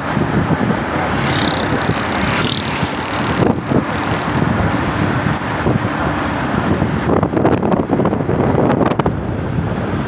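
Moving vehicle's road and engine noise with gusty wind buffeting the microphone.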